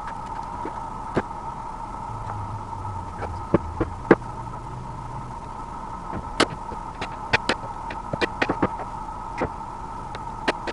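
Scattered light clicks and taps of fingers and cells against the plastic cell holders of an e-bike battery pack being laid out by hand, the sharpest about four seconds in. A steady hum carries on underneath.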